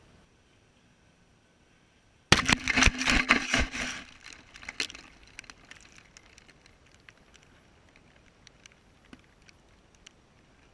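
A sudden loud crash of wood splintering and breaking, a rapid run of cracks lasting about two seconds, followed by scattered crackles and small debris ticks that thin out.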